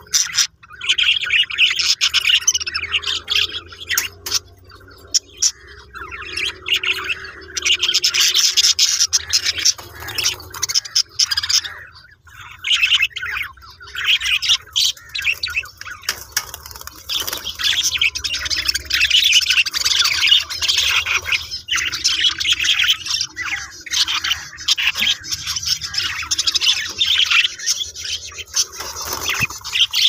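Several budgerigars chattering and chirping: a busy, nearly unbroken stream of quick calls with only short pauses.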